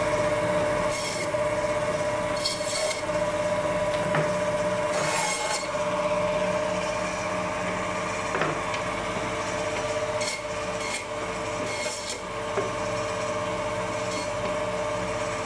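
Electric meat band saw running with a steady hum, its blade rasping briefly through goat meat and rib bone in several short cuts.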